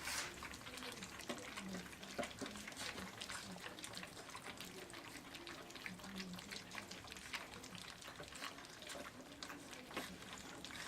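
Bearded Collie puppies lapping and slurping soaked puppy food mixed with natural yoghurt: a faint, irregular run of small wet clicks and smacks.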